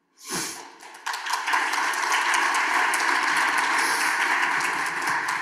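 Room of people applauding, a dense patter of hand claps that builds about a second in and holds steadily.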